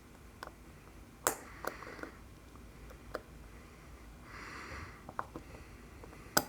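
Small metallic clicks and taps of steel tweezers working a watch mainspring barrel arbor, scattered and irregular, the sharpest a little over a second in and just before the end. Soft breaths through the nose come between them.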